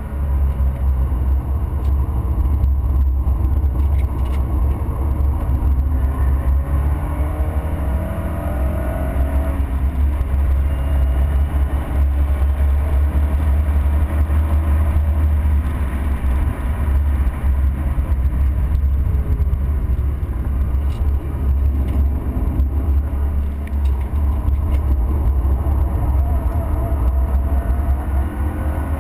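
A car at track speed, heard from inside the cabin: a steady heavy low rumble of engine, tyres and wind. The engine note climbs under acceleration about six to nine seconds in and again near the end.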